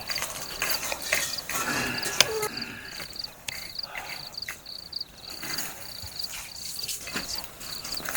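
A cricket chirping steadily: one high chirp repeated evenly a few times a second, with scattered clicks and knocks alongside.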